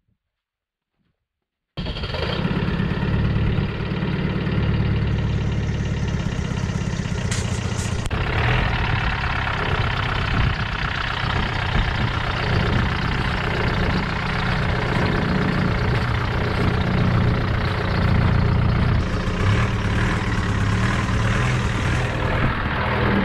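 Land Rover Discovery 1's engine running steadily as the vehicle is driven slowly; the sound comes in abruptly about two seconds in.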